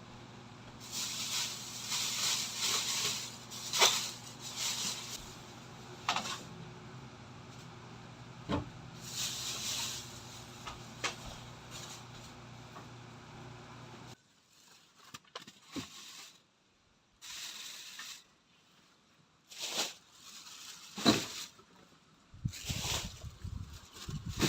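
Intermittent rustling and handling noises with a few sharp knocks, over a steady low hum that stops about halfway through; after that, mostly quiet with scattered short rustles.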